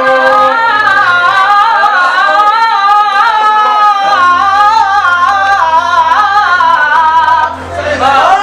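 A male singer performing an Iraqi mawwal: a long, melismatic vocal line with wavering ornaments over a steady held accompaniment note. The phrase dips briefly near the end before a new one begins.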